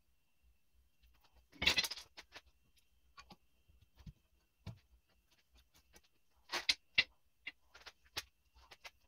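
Scattered metal clicks and clinks from a new rear brake rotor being seated on the hub and its retaining screw being driven in with a bit driver. The loudest one comes about two seconds in, and a few sharper clicks follow in the second half.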